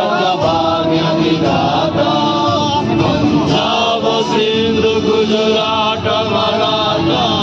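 Music with chanted vocals, several voices holding and shifting notes.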